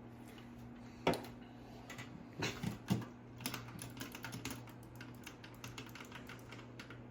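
Typing on a computer keyboard: a quick run of key clicks, with a few louder knocks in the first three seconds, over a steady low hum.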